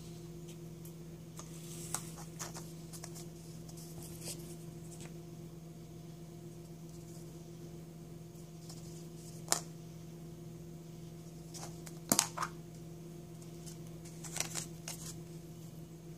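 Plastic surprise egg handled and snapped open by hand: scattered small clicks and taps of plastic, the loudest a sharp snap about three-quarters of the way through, over a steady low hum.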